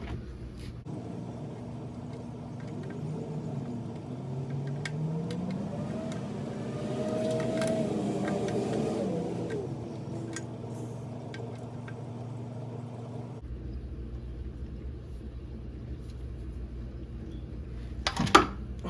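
A vehicle engine runs with a steady hum, its pitch rising and then falling through the middle, and gives way to a lower rumble. A sharp knock, the loudest sound, comes near the end.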